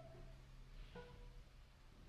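Near silence: the last ring of a plucked cello note fades out, and about a second in a single very faint, short cello note sounds.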